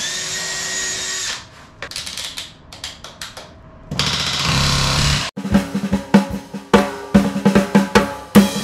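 A cordless drill runs for about a second, followed by a few scattered clicks and taps. About four seconds in, a pneumatic rivet gun rattles for just over a second. Then music with a drum beat starts and carries on.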